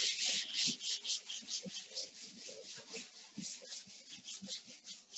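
Chalkboard being wiped clean by hand: quick back-and-forth rubbing strokes, several a second, loudest at the start and growing fainter.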